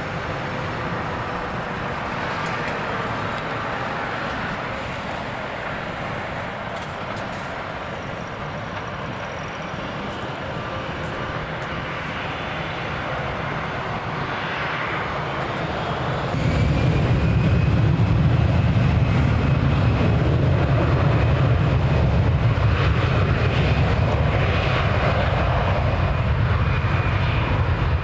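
Airbus A320-family airliner's twin jet engines running with a steady whine and rumble as it lines up on the runway. About halfway through the sound jumps in loudness to a deep rumble with a high steady whine as thrust comes up for the takeoff roll.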